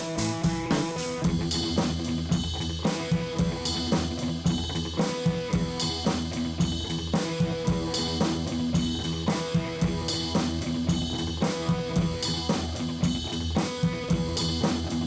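Background music: a drum kit playing a steady beat under held guitar and instrument notes.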